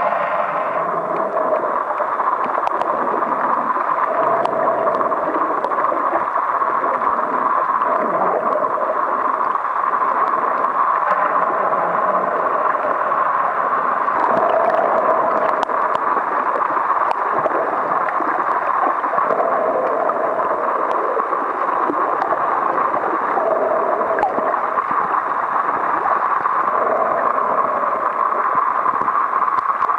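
Muffled underwater water noise picked up by a waterproof compact camera held below the surface: a steady rushing hiss, with a lower sound coming and going every few seconds.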